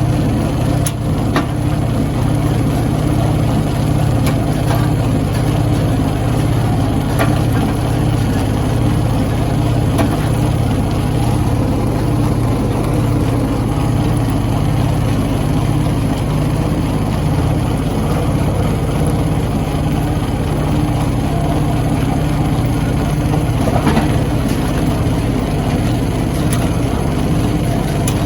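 Stone crushing machine running steadily with a heavy low hum, with a few sharp knocks now and then as rock is struck or cracks.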